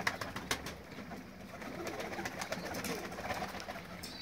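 A flock of domestic pigeons cooing while feeding, with scattered sharp clicks of beaks pecking boiled millet off a slate roof.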